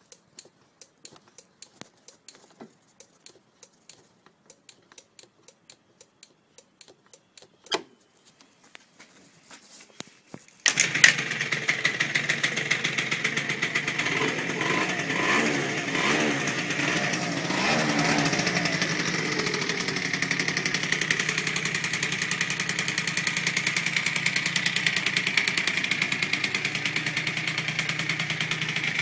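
A series of light clicks and taps, then about eleven seconds in the Aprilia SR scooter's small two-stroke engine starts abruptly and runs. Its pitch rises and falls for a few seconds before it settles into a steady idle.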